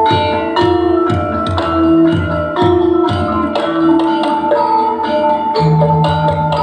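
Dance accompaniment music: struck percussion with ringing pitched notes over a steady beat of about two strikes a second, with a low bass line.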